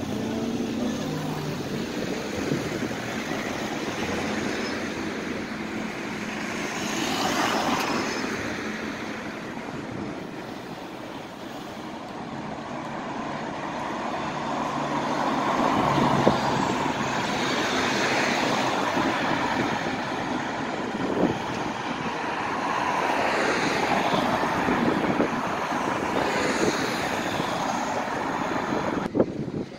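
City buses and other road traffic driving past, engines running and tyres hissing on the wet road. The sound swells several times as vehicles go by.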